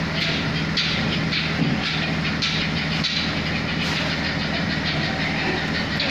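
A steady engine-like hum with hissing, rattling noise over it.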